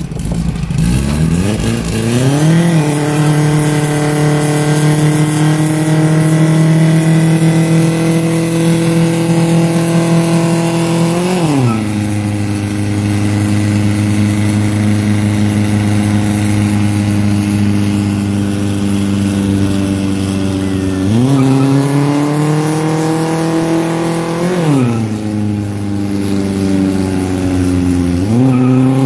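Volkswagen's engine held at high revs for a burnout over the hiss of spinning tyres. The revs climb about two seconds in and hold steady, drop sharply about eleven seconds in, then climb and fall again several times near the end.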